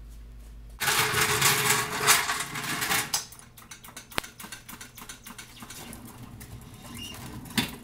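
Manual pallet jack rattling loudly as it is rolled across a concrete floor, starting about a second in. After that come lighter clicks and knocks, with one sharp click, as its handle is worked under the load.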